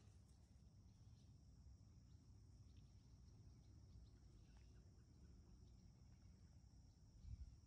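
Near silence: a faint, steady, high insect trill with a low rumble underneath, and one soft low thump near the end.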